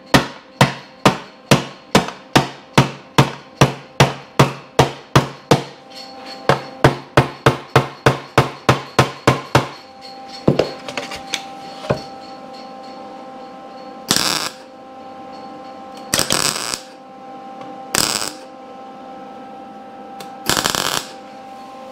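Body hammer beating the steel seat pan of a 1975 Suzuki TS250 back into shape: an even run of sharp blows, about two and a half a second, for ten seconds, then two single blows. After that, four short bursts of a MIG welder tacking a patch into the pan, the last about a second long.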